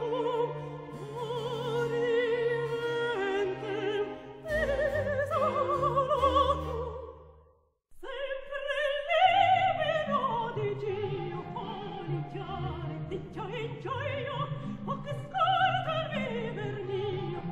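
Operatic soprano singing with wide vibrato over instrumental accompaniment. The music fades out about seven and a half seconds in, is silent for a moment, and starts again.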